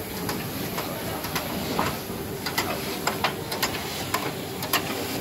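Steam hissing from a standing class 86 steam tank locomotive, with a jet of steam and water spraying from a pipe beside its driving wheels, and scattered sharp clicks and knocks.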